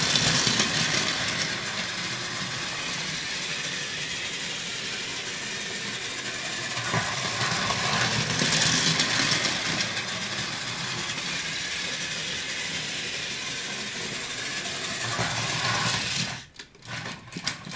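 Plarail E1 series Max Shinkansen toy train running on plastic track: a steady whirring of its small battery motor and gears with the rattle of wheels on the track, louder as it passes close, about a second in and again around eight to nine seconds in. About sixteen seconds in the running stops suddenly as the train is taken in hand, followed by a few sharp clicks.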